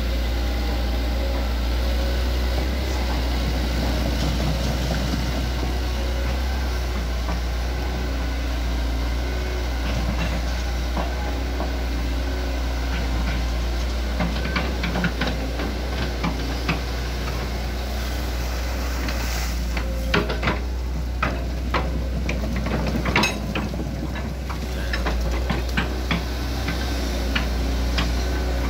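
Hitachi ZX110MF crawler excavator's diesel engine running steadily as the machine travels on its tracks, with sharp clanks and knocks from the crawler tracks coming thickly in the second half.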